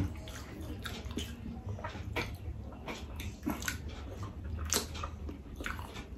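Close-up chewing of a forkful of lasagna: soft wet mouth smacks and small clicks, coming irregularly, over a faint low hum.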